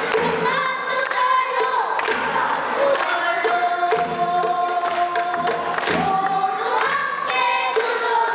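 A group of children singing a pansori song together in unison, holding long notes, with a few drum strokes, likely from a Korean barrel drum (buk), marking the beat.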